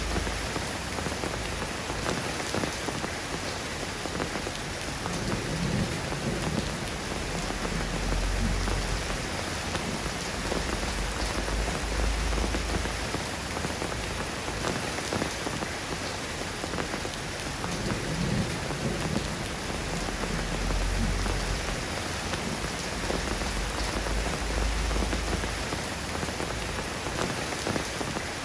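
Steady rain falling, an even hiss of drops on surfaces, with soft low rumbles swelling up underneath every few seconds.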